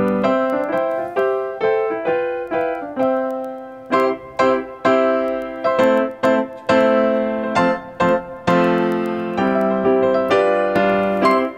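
Background music: a lively piano piece with quick, evenly struck notes.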